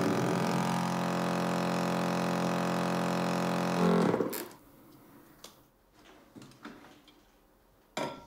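Motor of a bottle-filling machine humming steadily, then cutting off about four seconds in. After it stops, a few light clicks of glass bottles being handled, the sharpest near the end.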